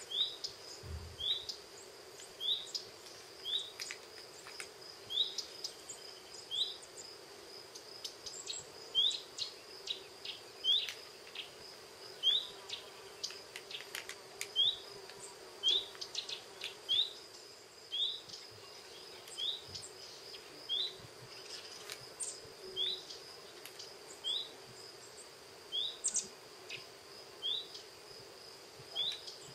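Short rising animal chirps repeated about once a second, over a faint steady high whine and a low hum.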